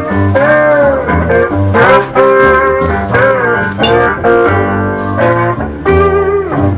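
Live blues played on acoustic guitar, with a lead melody that slides and bends in pitch over a steady low bass line.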